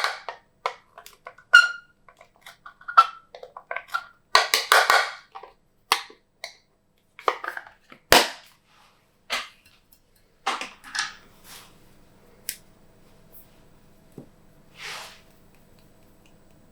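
Glossy slime being squished and stretched by hand, giving a run of sharp sticky clicks and popping air bubbles. After about ten seconds the handling goes quieter, leaving a faint steady hum and a few soft squishes.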